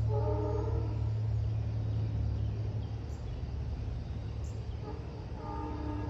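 Steady low rumble of an Airbus A330-300's Rolls-Royce Trent 700 jet engines passing overhead on approach, easing slightly in level. A brief higher-pitched tone sounds in the first second and again near the end.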